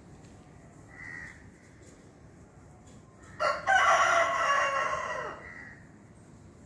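A rooster crowing once: a single loud call of about two seconds that starts abruptly and trails off.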